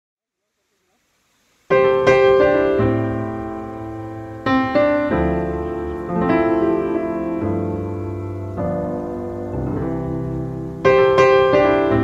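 Background piano music: slow struck chords, each one ringing and fading before the next, beginning after silence about two seconds in.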